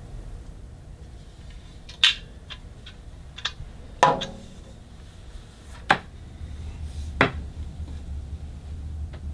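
Metal hip flask handled: a few light clicks, then a solid knock with a short ring as the flask is set down on a table about four seconds in, followed by two more sharp knocks.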